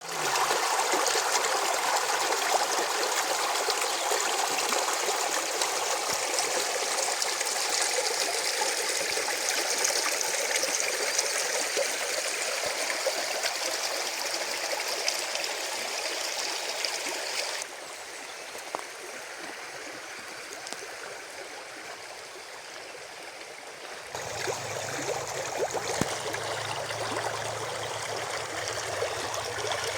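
Spring water flowing in a small stream: a steady rushing trickle. It drops quieter a little past halfway, then comes back louder with a low rumble under it for the last few seconds.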